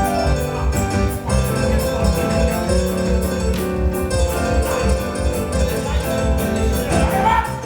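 Upbeat show music with a steady beat, piano and keyboard to the fore.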